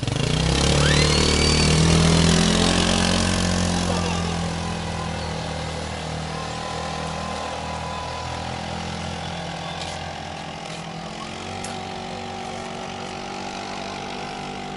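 Sport go-kart's small engine driving past, loudest just after the start, its pitch falling as it goes by and away, then running on at a steady lower note.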